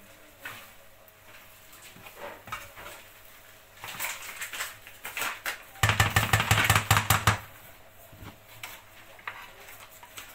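A spoon scraping and knocking against a frying pan on the stove as the food is stirred, with scattered light knocks. About six seconds in comes a loud rapid rattle lasting about a second and a half.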